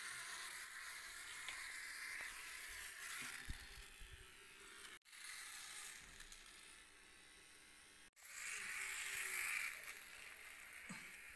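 Small toy robot's electric motor buzzing, a steady hissy whir. It cuts off abruptly twice, about five and eight seconds in, and is quieter in between.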